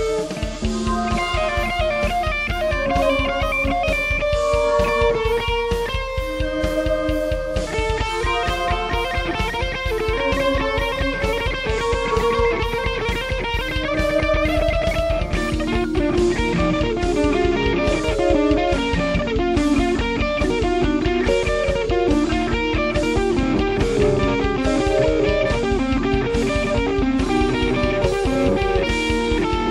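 Instrumental rock music: an electric guitar plays a melody over a steady drum beat.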